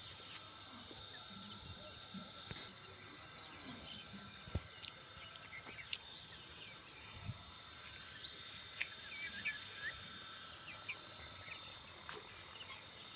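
Steady high-pitched drone of insects, like a cricket chorus. Short scattered chirps and a few soft knocks come over it, mostly in the second half.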